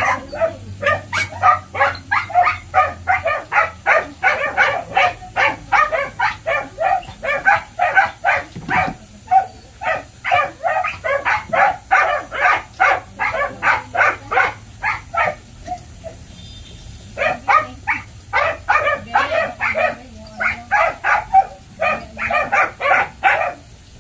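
A dog barking rapidly and without letup, about three barks a second, with a short break about two-thirds through before the barking resumes.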